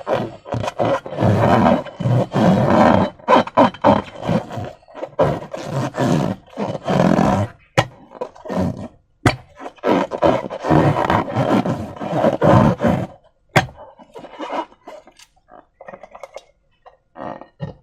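Slime being squeezed and worked by hand with balloons: irregular wet squelching and rubbery rubbing, with a few sharp clicks. It grows sparser and quieter after about thirteen seconds.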